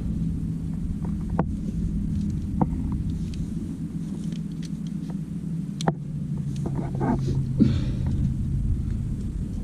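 A steady low engine-like drone that dips slightly in pitch around the middle, with scattered sharp clicks, knocks and scrapes of climbing gear on rock.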